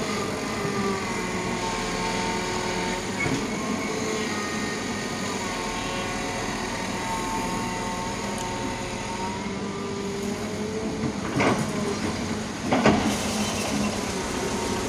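Kobelco hydraulic crawler excavator running while it digs, a steady engine sound with a whine that shifts in pitch. Near the end come two loud knocks about a second and a half apart.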